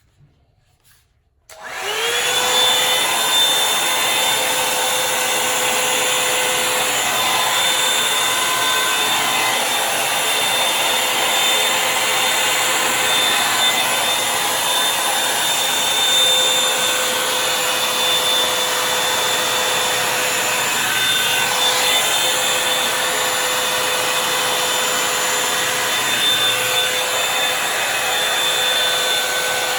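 Revlon One Step Volumizer hot-air brush dryer switched on about a second and a half in, its motor spinning up with a short rising whine. It then runs steadily, blowing air with a constant whine over a rushing hiss.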